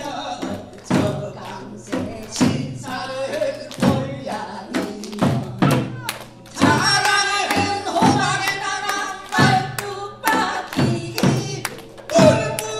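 A barrel drum (buk) struck with a stick in irregular strokes, accompanying pansori-style singing through microphones. The singing is strongest in the second half.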